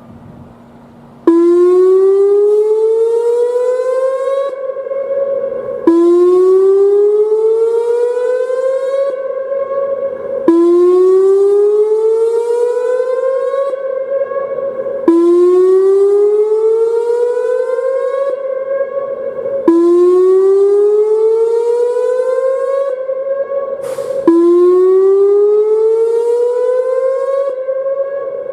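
Whelen WPS-2910 electronic warning siren sounding its whoop as the dam-failure warning signal. Each whoop is a rising sweep that climbs for about three seconds, holds briefly and cuts off, then starts again from low pitch about every four and a half seconds. The first starts about a second in, and six sound in all.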